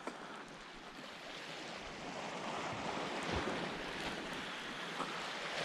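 Sea waves breaking and washing over rocks, swelling and easing, with light wind on the microphone and a few faint knocks.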